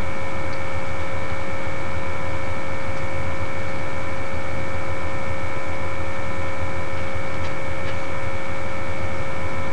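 A loud, steady electrical hum with a higher buzzing tone over it. It does not change at all.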